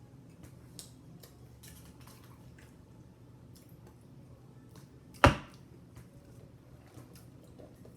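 Faint clicks and light handling noises from eating at a table, with one sharp, loud knock about five seconds in, like a hard object set down or bumped.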